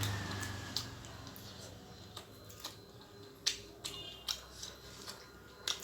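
Close-up eating sounds: a series of short, sharp mouth clicks and smacks at irregular intervals while chewing, after a low rumble that fades in the first second.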